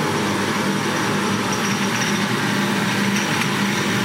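A machine tool running steadily, likely a CNC machine at work, with a constant low hum and a thin high whine.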